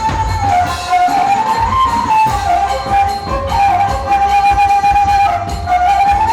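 Traditional Batak ceremonial music: a wind instrument plays a winding melody over a steady low drum beat.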